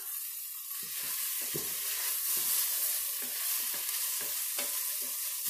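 Food sizzling as it sautés in the pot of a Pampered Chef Quick Cooker electric multicooker, with a steady hiss and the utensil stirring and scraping through it about three times a second.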